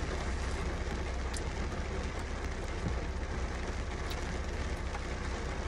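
Steady rain falling on a car's roof and windows, heard from inside the cabin, with a constant low rumble underneath and a few faint ticks.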